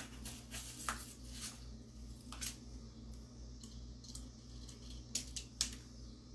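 Several short, light clicks and scrapes of hands handling a pumpkin as a toothpick is pushed firmly into it to join the topiary.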